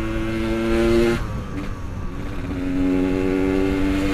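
Yamaha RX-King's two-stroke single-cylinder engine under way. It climbs slightly, the throttle closes just over a second in, then it pulls again at a steady, lower pitch, with road and wind noise underneath.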